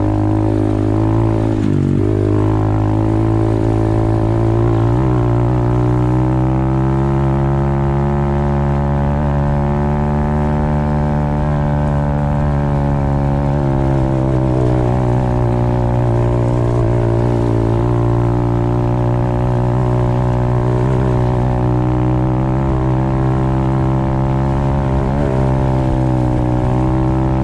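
Apollo RFZ 125cc pit bike's single-cylinder four-stroke engine running hard at high revs on a top-speed run. Its pitch holds high, dipping briefly and climbing back a few times.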